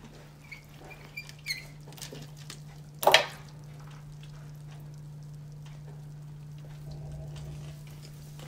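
Rubber brayer rolled over paper on a gel printing plate, with small clicks and scuffs, then one sharp knock about three seconds in as the brayer is set down on the table. Quieter paper handling follows as the print is peeled off the plate, over a steady low hum.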